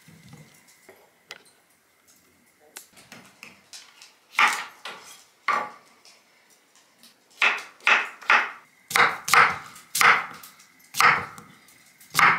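Kitchen knife chopping a cucumber on a wooden cutting board: about ten sharp chops at an uneven pace, most of them in the second half.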